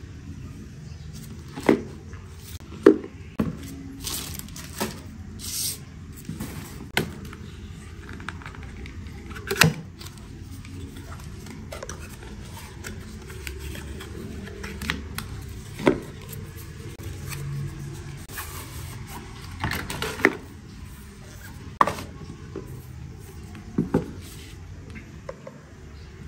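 Cardo Packtalk Bold Duo intercom kit being unboxed: irregular sharp clicks and knocks as the box and its contents are handled, with two short scraping rustles a few seconds in.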